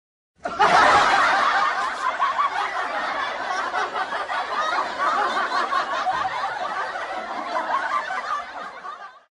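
Crowd laughing sound effect: many people laughing together. It starts loud about half a second in and gradually dies away near the end.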